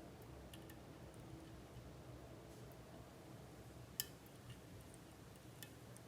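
Faint metallic clicks of lock-picking tools working the pins of an MTL Jr lock, with one sharper click about four seconds in, over a low steady hum.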